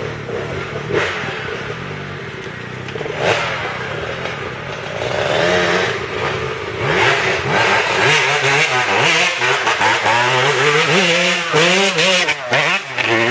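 Dirt bike engine approaching on a trail, revving up and down with the throttle, getting louder until it passes close by near the end.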